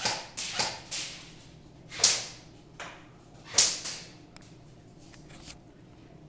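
Airsoft guns firing single shots: a few sharp cracks in the first second, two louder ones about two and three and a half seconds in, and fainter ones later, each with a short echo.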